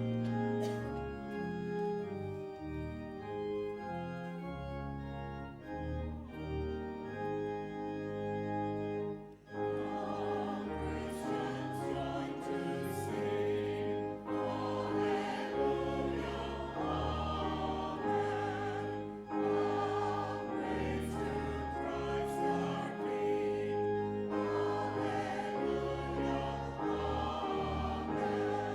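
Organ playing the introduction to a hymn, with the congregation joining in singing the hymn with the organ about nine seconds in.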